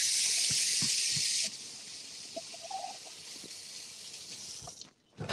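Kitchen faucet running into the sink as hands are washed, a steady hiss of water that drops to a softer flow about a second and a half in and is shut off near the end.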